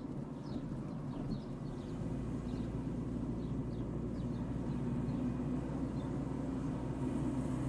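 Steady low hum and rumble of a car driving slowly along a road, with a bird chirping in short repeated notes during the first half.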